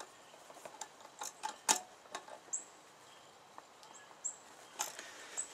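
Scattered faint clicks and ticks from a hand working the valve on a hydraulic pressure-test rig, the sharpest click about a third of the way in.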